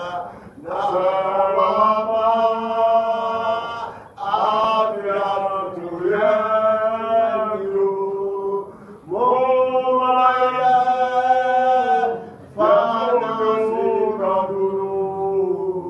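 A man singing a gospel song solo, in about five long held phrases with short gaps between them.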